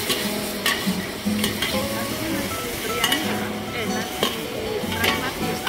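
Goat meat cubes sizzling as they fry in a large steel wok, stirred with two metal spatulas that scrape and clink against the wok several times.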